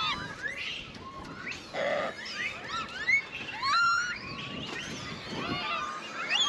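Many Japanese macaques calling at once: a chorus of short, overlapping coos and squeals that rise and fall in pitch.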